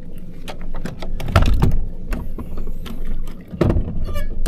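Fishing boat under way on the water: a steady low motor hum with scattered knocks and rattles, and two heavy low thumps, about a second and a half in and again near the end.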